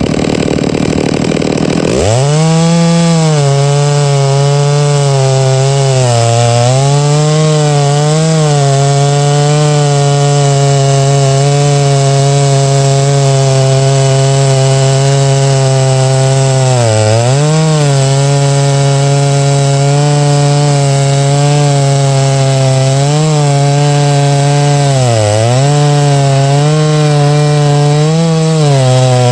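Big two-stroke chainsaw idling, then throttled up about two seconds in and held near full speed while milling oak. Its pitch sags briefly a few times as the bar loads up in the cut, then recovers.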